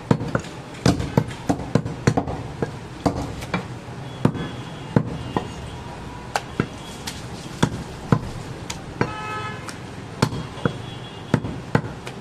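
A heavy butcher's chopping knife striking goat meat on a wooden chopping block: sharp, irregular chops, about one or two a second.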